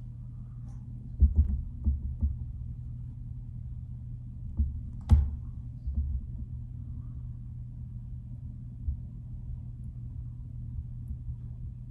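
Steady low hum with occasional dull thumps and one sharp click about five seconds in: a hook and tools being handled at a fly-tying bench.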